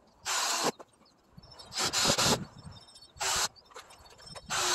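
DeWalt cordless drill/driver run in four short bursts, driving wood screws into lumber.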